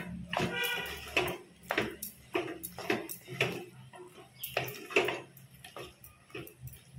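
Spatula scraping and knocking against an earthenware pot while stirring thick chunks of vegetables, in irregular strokes. A brief ringing tone sounds under a second in.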